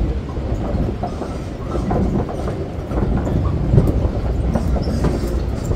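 Boardwalk tram heard from on board while it rolls along the wooden boardwalk: a steady low rumble with frequent small rattles and clacks.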